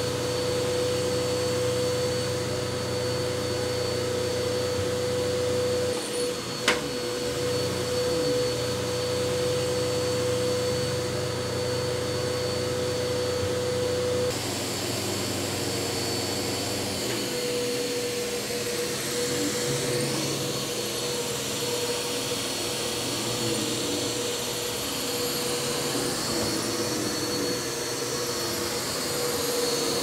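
Bagless upright vacuum cleaner running steadily, a motor drone with a high whine over it. There is one sharp click about seven seconds in, and the drone's tone shifts a little about halfway through.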